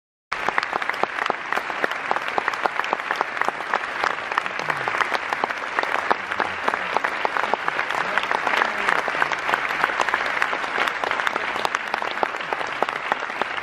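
Audience applause, many people clapping, cutting in abruptly just after the start and keeping a steady level.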